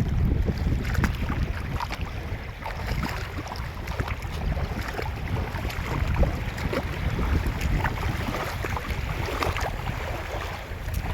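Wind buffeting the microphone by a river, a heavy low rumble that eases after the first couple of seconds, with scattered small clicks throughout.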